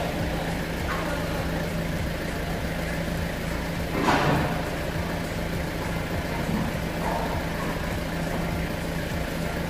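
Styrofoam (EPS) factory machinery running with a steady hum. A brief, louder rush of noise comes about four seconds in.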